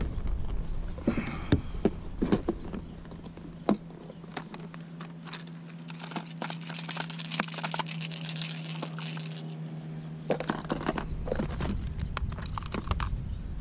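Plastic tackle box of fishing lures being handled: irregular clicks and rattles of hard plastic lures and the box, with a steady low hum through the middle.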